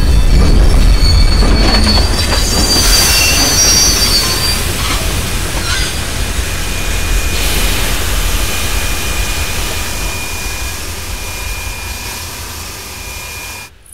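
Steam train rolling slowly through a station, its wheels squealing high on the rails over a steady hiss of steam. The sound fades gradually and cuts off abruptly near the end.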